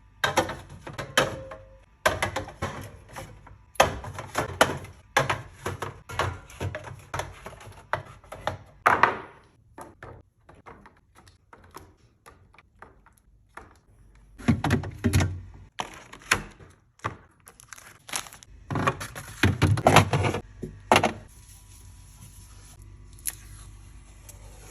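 Irregular knocks, clunks and clatter of food containers and jars being handled, set down and slid onto fridge shelves. They come in busy bursts, thin out for a few seconds about halfway through, and die down near the end.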